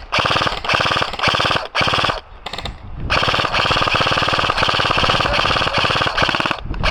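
Airsoft electric gun (AEG) submachine gun, a Double Eagle M917G UTR45, firing on full auto close to the microphone. A few short bursts in the first three seconds are followed by one long burst of about three and a half seconds.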